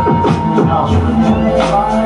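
Loud electronic music playing live, with a steady beat over held tones and a low drone.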